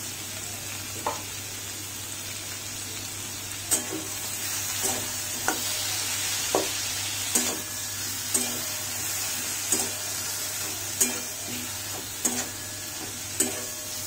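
Flat steel spatula stirring chunks of boiled potato, bitter gourd and tomato in a steel wok, knocking against the pan roughly once a second, over a steady sizzle of the vegetables frying.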